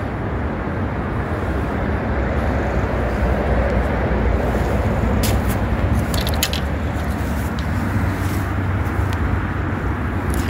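Steady noise of heavy traffic on a busy main road, with a few short clicks about five to six and a half seconds in.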